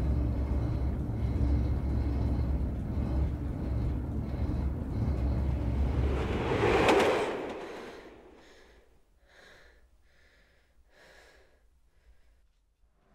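Steady low rumble of a moving vehicle's interior, swelling to a loud whoosh about seven seconds in and then fading away. After that it is near quiet, with faint short breaths about once a second.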